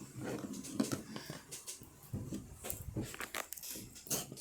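Sticky butter slime being squeezed and pulled by hand, making irregular small clicks and crackles as it sticks and lets go.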